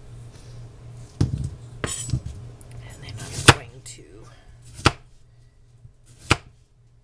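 Kitchen knife cutting slices of watermelon, each stroke ending in a sharp knock on the board: about six knocks starting about a second in, the later ones roughly a second and a half apart.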